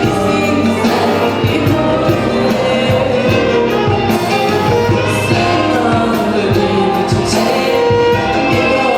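Song with instrumental backing and a voice singing the melody.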